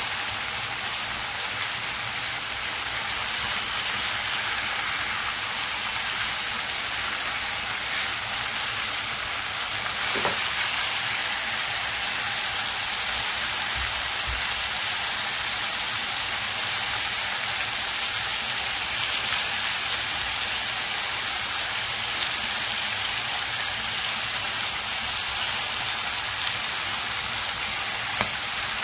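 Marinated chicken pieces sizzling steadily in hot oil in a nonstick wok, shallow-frying their second side to golden brown.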